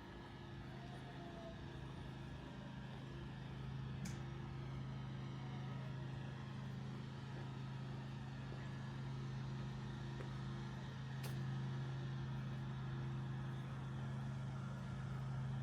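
A motor vehicle's engine running steadily, a low hum that grows slightly louder. Two sharp clicks cut through it, about four and eleven seconds in.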